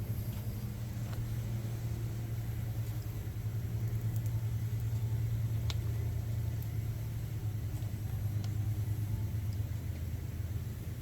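A steady low motor rumble with a fast, even pulse, and a few faint clicks and taps over it.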